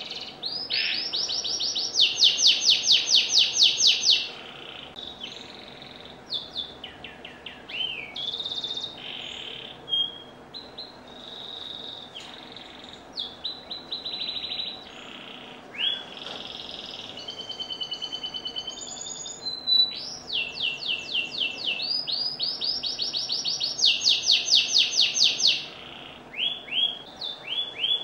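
Domestic canary singing a long, varied song. Loud, fast trills of rapidly repeated notes alternate with held whistled notes and quicker twittering phrases.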